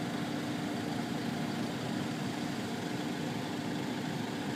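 Steady, unchanging drone of idling engines with a constant low hum.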